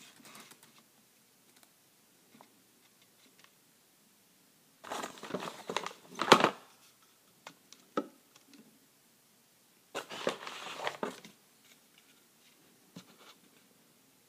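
Clear plastic packaging crinkling in two bursts, about five and ten seconds in, as plastic toy bowling pins are lifted and set down in their box, with a few light plastic knocks in between.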